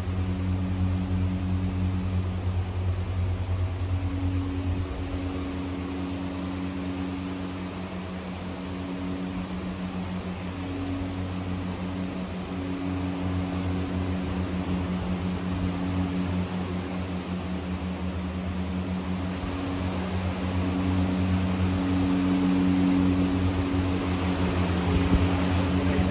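A steady low hum made of a few held tones, one of which fades in and out, growing a little louder near the end.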